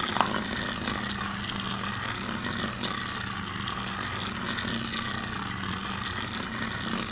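HexBug Mouse robotic cat toy's small motor running steadily as the mouse scurries around inside a hollow plastic circular track toy.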